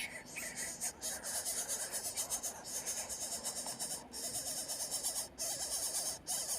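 Bird calling in a busy, wavering run, over a steady high hiss that drops out briefly several times.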